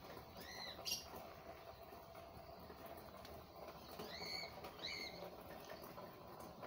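A bird chirping faintly: three short, arched chirps, one about half a second in and two close together around four and five seconds. A sharp click sounds just before one second, over a low steady hiss.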